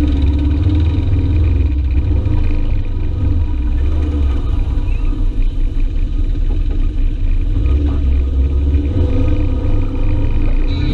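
Side-by-side UTV engine and drivetrain running while driving over offroad trails, a heavy low rumble that eases off about four seconds in and picks up again around eight seconds.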